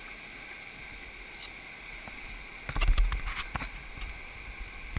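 Whitewater rushing past a kayak, heard from a camera on the boat, with a burst of splashes and knocks against the boat and camera about two and a half seconds in and a few more sharp knocks near the end.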